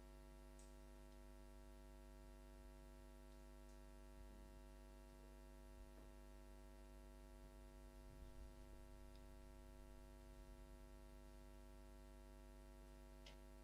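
Near silence: a steady low electrical hum with a few faint scattered clicks.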